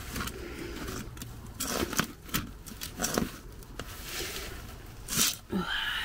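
A few brief scrapes and knocks of a gloved hand working a handbrake cable at its metal retaining clip under a car, spaced irregularly a second or so apart.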